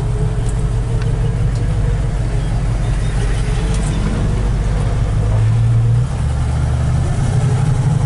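Chevrolet 350 cubic-inch V8 heard from inside the car's cabin while driving off. The engine note rises from about five seconds in and dips briefly at about six seconds as the four-speed overdrive automatic, fitted with a shift kit, shifts up with a firm shift.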